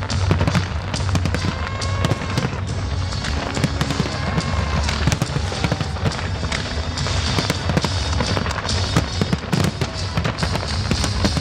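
Large fireworks display: a dense, continuous barrage of bangs and crackles over a low rumble, with music playing underneath.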